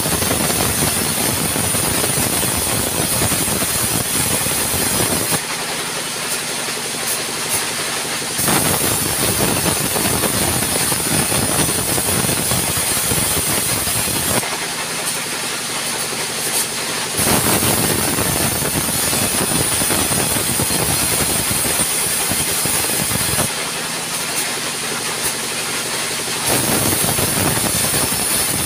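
Sawmill's large vertical band saw ripping a log into boards, a loud steady cutting noise over the running machine. Three times the cutting stops for about three seconds between passes, leaving only the steady hum of the saw running free.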